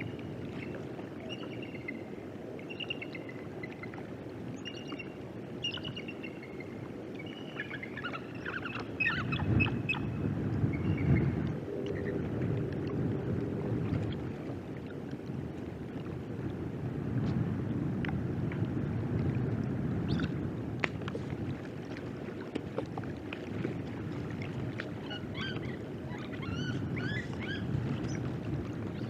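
Steady low rumble of wind and water noise on an outdoor microphone, with strings of short, high bird calls through the first ten seconds or so and again near the end.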